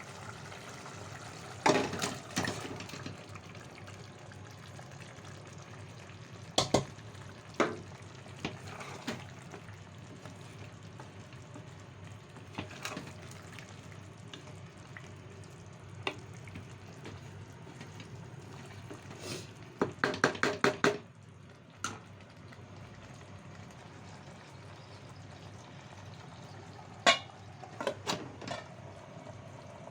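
Food frying in a pan with a steady sizzle, and a metal utensil knocking and scraping against the pan now and then, including a quick run of taps about twenty seconds in.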